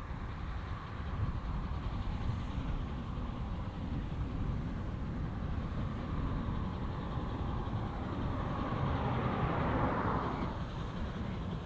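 Narrow-gauge steam locomotive running towards the listener with its train, over a steady low rumble. The sound swells to its loudest about nine to ten seconds in as it draws closer.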